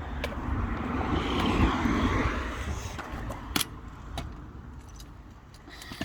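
A car passing: a rumbling rush of noise that swells and fades over about three seconds. A couple of sharp knocks follow.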